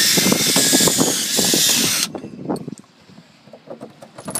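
Cordless drill running with a long bit, boring through a pine plank into the timber beam below, the bit chattering rapidly as it cuts. The drill stops abruptly about two seconds in, leaving quiet handling with a few light clicks near the end.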